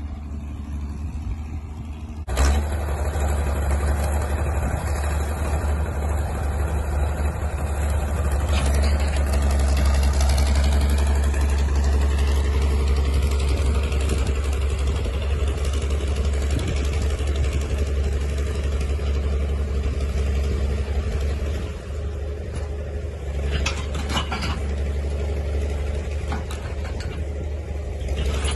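Diesel engine running steadily, growing abruptly louder about two seconds in, with a couple of short knocks a little past twenty seconds in.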